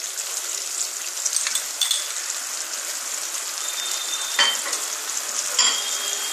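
A cup of water over oil, mustard seeds, curry leaves and green chillies boiling hard in a non-stick kadai, a steady sizzling bubble: the tempering liquid at a rolling boil as the sugar dissolves. Two sharp metallic clinks, each with a short ring, about four and a half and five and a half seconds in.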